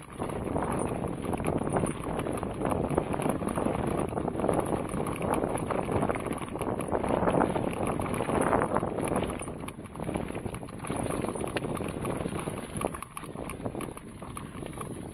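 Mountain bike ridden fast down a leaf-covered dirt trail: tyres rolling over leaves and dirt with constant rattling knocks from the bike, and wind buffeting the microphone. It is loudest a little past halfway, then eases off.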